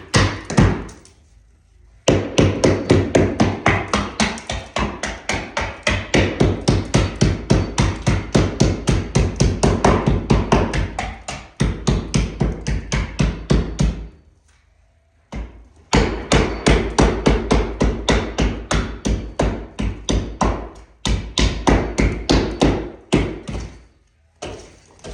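Hammer blows demolishing a plaster-and-lath wall, struck in fast, even runs of about four or five a second, with two short pauses.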